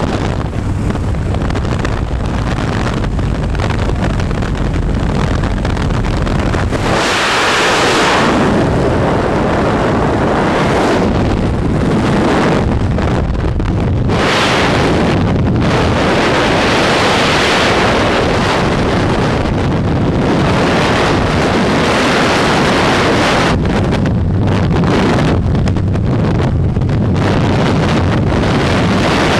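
Light aircraft engine droning in the cabin of the jump plane with wind through the open door. About seven seconds in the engine drone gives way to a steady rush of freefall wind buffeting the microphone.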